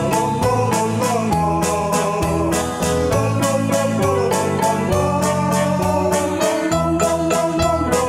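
Instrumental background music: keyboard or organ-like chords and melody over a steady beat.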